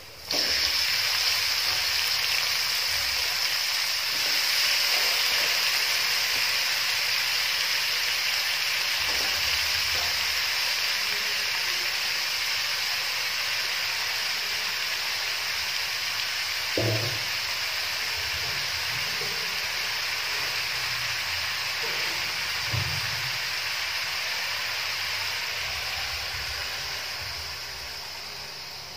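Oyster mushrooms and sliced carrots frying in hot oil in a wok, a steady sizzle that starts suddenly as they go in and tails off near the end. Two short knocks come partway through.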